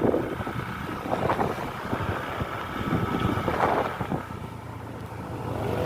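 Road traffic: a vehicle engine running steadily, with wind buffeting the microphone, growing louder near the end as a vehicle approaches.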